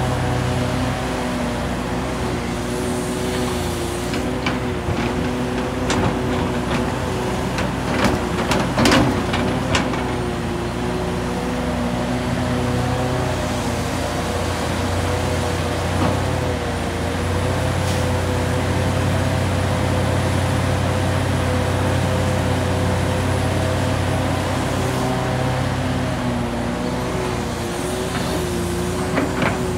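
Hitachi Zaxis 670LCR excavator's Isuzu six-cylinder diesel running under working load, its note wavering slightly as the hydraulics swing and dig. A clatter of knocks about eight to ten seconds in comes from the bucket load of earth and rock being dumped.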